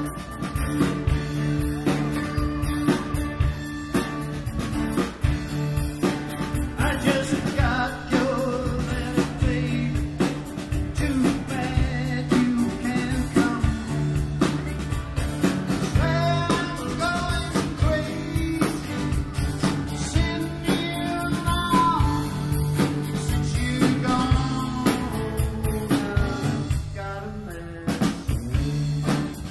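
A song playing: a singing voice over guitar and drums, with a steady beat.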